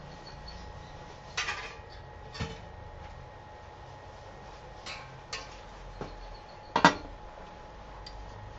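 Metal cookware clattering: about six separate knocks and clinks of pans being handled. The loudest comes near the end, a short ringing clank as a stainless steel pan is set down on the stovetop.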